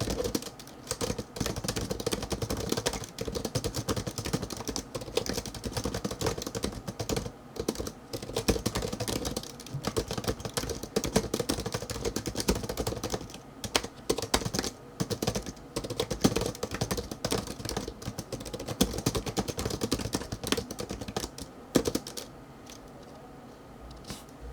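Fast typing on an ABKO TOS100 slim pentagraph (scissor-switch) keyboard: a dense run of light key clicks with brief pauses, stopping a couple of seconds before the end.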